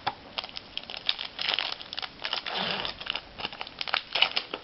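Trading cards being handled and a foil card-pack wrapper crinkling: a busy run of small clicks, flicks and rustles.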